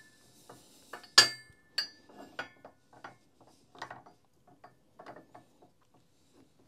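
Metal parts clicking, knocking and clinking as the motor part is handled and seated on a press, with one sharp ringing metallic clink about a second in and a run of smaller irregular clicks after it.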